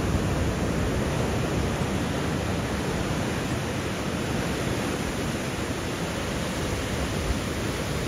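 Ocean surf: waves breaking and washing in close by, a steady rushing noise without pause.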